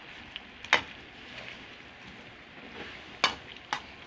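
A spatula stirs fried pork pieces in a pan of simmering sauce, with a soft sizzle underneath as the sauce cooks down into the meat. There are sharp clacks of the spatula against the pan about a second in and twice near the end.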